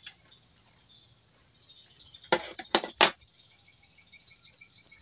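Three sharp knocks in quick succession, about two to three seconds in: a kitchen knife and a cut melon wedge being set down on a plastic chair seat. Faint bird chirping runs underneath.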